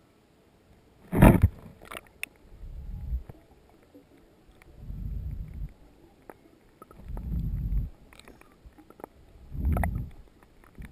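Muffled sound from a GoPro underwater in its waterproof housing: a sharp knock about a second in, then low whooshing swells every two seconds or so as water moves against the housing.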